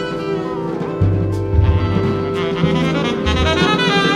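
Jazz ensemble playing live: saxophones hold and move through melodic lines over a walking line of low bass notes, with a quicker run of notes in the second half.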